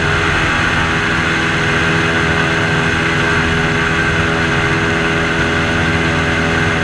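Airboat's engine and propeller running steadily while under way, a loud, even drone that holds at one pitch.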